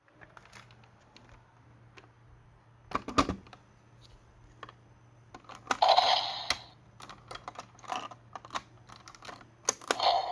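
Plastic clicks and button presses from handling a toy sentai transformation device, with a brief louder burst of sound from the toy about six seconds in.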